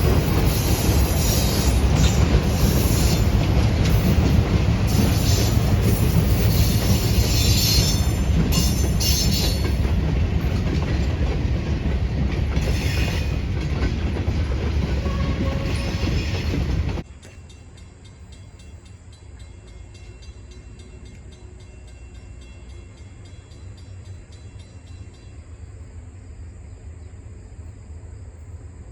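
Freight train rolling past close by, a loud rumble with flickering wheel squeal and clatter. About seventeen seconds in it cuts off suddenly to a much quieter, steady low rumble.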